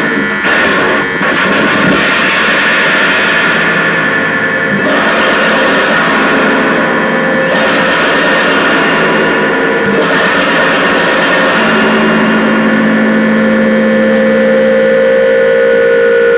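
Harsh noise from a homemade amplified spring instrument: a small motor spins a wheel against coiled springs whose vibrations a pickup sends out, driven hard into feedback. A dense, loud, unbroken wall of grinding noise with steady ringing tones and bursts of high hiss; a steadier low tone comes in about twelve seconds in.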